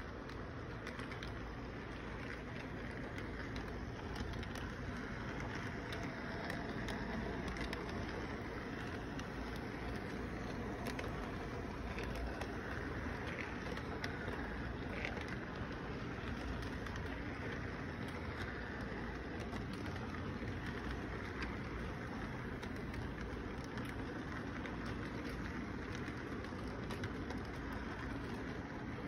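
Toy electric train rolling past on its track: a steady running rumble with faint scattered clicks, a little louder in the middle as the cars pass close.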